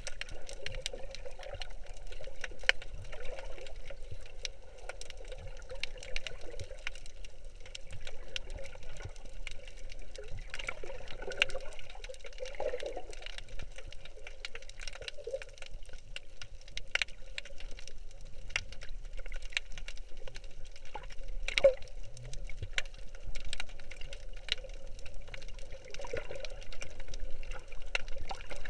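Muffled underwater sound of moving seawater, heard from beneath the surface, with scattered sharp clicks and ticks throughout.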